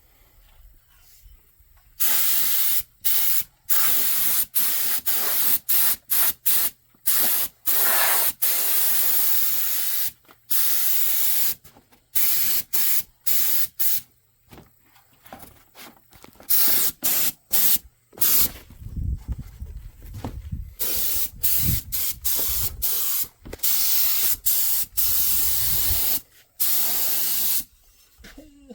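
Aerosol spray paint can hissing in many short bursts and a few longer passes of up to about two seconds, with quiet gaps between. Part way through, a low rumble sits under the spraying.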